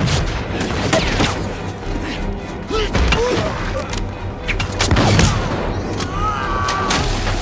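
Film battle soundtrack: flintlock musket shots and heavy impacts crack out irregularly over a music score. A man cries out near the end as a body splashes into water.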